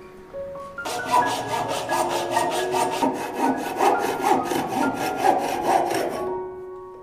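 A saw cutting through a dry tree branch in quick rhythmic strokes, about four or five rasps a second, starting about a second in and stopping near the end. Soft piano music plays underneath.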